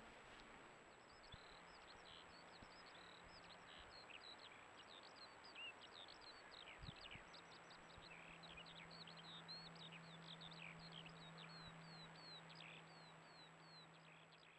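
Faint birdsong: rapid high chirps and short down-slurred whistles, settling near the end into an evenly spaced run of repeated descending notes, over a low steady hum.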